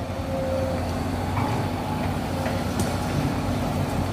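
Diesel engine of a tracked hydraulic excavator running steadily at low revs, a constant low drone.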